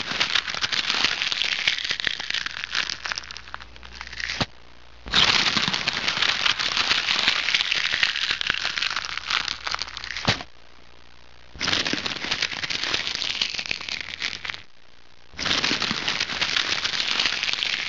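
Dense crackling, static-like noise, a sound effect over the animated end screen, in four stretches that break off briefly and start again.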